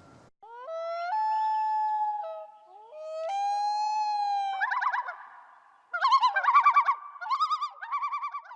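Electronic, theremin-like tones: two notes that each swoop up and hold for about a second, then a run of quick warbling notes that wobble in pitch.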